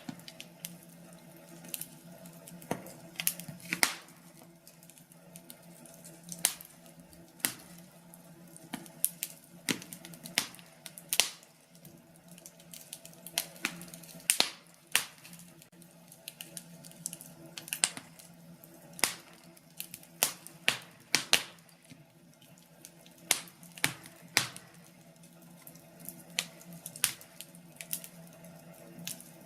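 Wood fire in a fireplace crackling, with sharp irregular pops about once or twice a second over a steady low hum.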